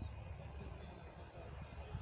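Low rumble of a distant Airbus A319 airliner's jet engines on the runway, with wind buffeting the microphone.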